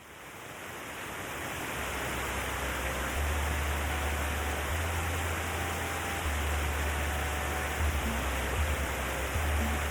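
Rushing water of a mountain stream, a steady hiss that fades in from silence over the first two seconds, with a low rumble underneath.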